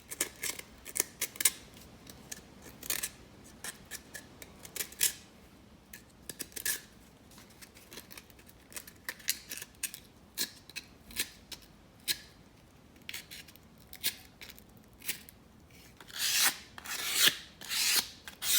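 Sandpaper rubbed by hand over wood in short, irregular scratchy strokes, with longer, louder strokes near the end.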